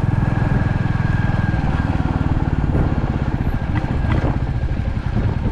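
Royal Enfield Classic 350's single-cylinder engine and exhaust running on the move, a steady stream of even low pulses; about two seconds in the pulses slow and the sound eases slightly, as the throttle comes off.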